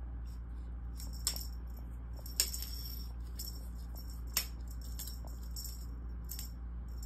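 Light clicks and jingly rattles from a cat wand toy, its lure and small metal clip flicked about and tapping on a tile floor. The sharpest clicks come about a second, two and a half and four and a half seconds in. A steady low hum sits under them.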